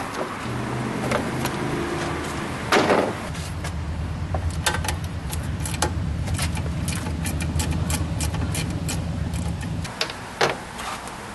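Hand ratchet wrench clicking in quick runs as bolts are backed out of a lawn mower engine's plastic shroud, with a loud clunk about three seconds in. A steady low motor hum runs under it and stops near the end.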